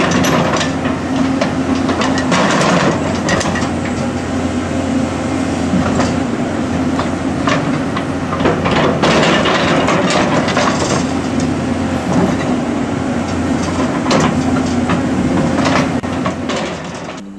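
Hydraulic excavator working close up: a steady diesel engine drone under the scraping of the steel bucket teeth through rocky soil and irregular clatter of stones against the bucket. It fades near the end.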